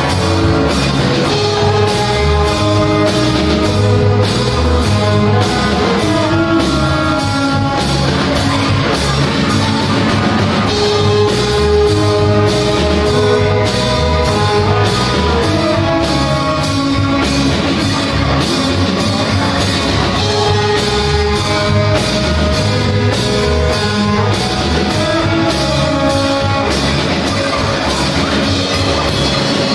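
Live rock band playing loudly: electric guitars over a steady drum-kit beat, with sustained melodic notes on top.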